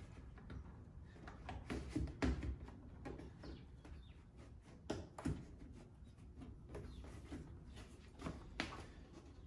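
Scattered clicks, knocks and rubbing of a flexible plastic in-channel window deflector being pushed and bent into a car door's window channel, with sharper knocks about two, five and eight and a half seconds in.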